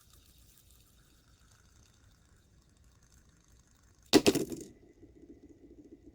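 A sudden loud clatter about four seconds in, then a fidget spinner whirring with a fast, steady flutter.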